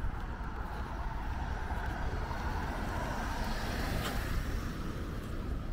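A car driving past on the road close by, its tyre and engine noise swelling about four seconds in over a steady low rumble.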